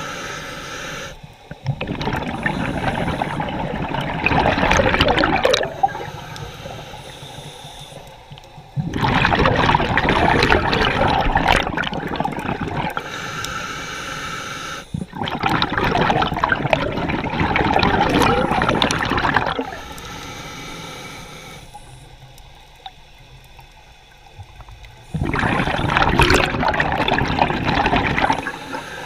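Scuba diver breathing underwater through a regulator: four long rushes of exhaled bubbles, with quieter stretches between them for the inhalations.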